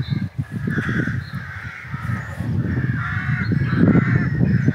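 Birds calling again and again, the calls coming one after another, over a continuous low rumbling noise.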